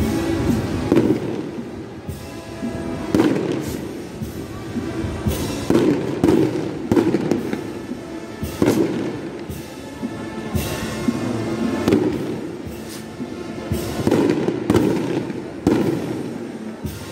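Fireworks going off in a quick, irregular series of sharp bangs, over music playing steadily underneath.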